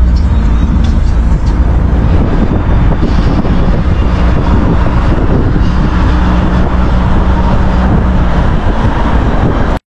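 Car driving along a street, heard from inside the cabin: a steady rumble of engine and road noise that cuts off suddenly near the end.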